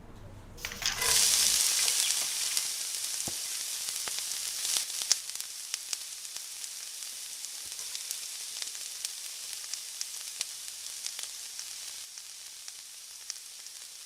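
Food sizzling in hot oil in a pan: a sudden loud burst of sizzle about a second in, as it meets the oil, then steady sizzling with scattered crackles and pops that slowly eases off.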